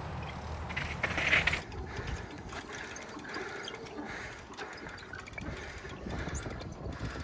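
Transition Smuggler mountain bike being ridden downhill: tyres rolling and scuffing over dirt and rock, with scattered clicks and rattles from the bike and a louder rush of tyre noise about a second in.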